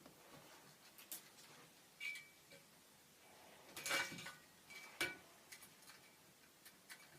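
A few sharp plastic clicks and clacks from a Nerf blaster being worked, the loudest about four seconds in and another a second later, some with a short high ring, and faint ticks between.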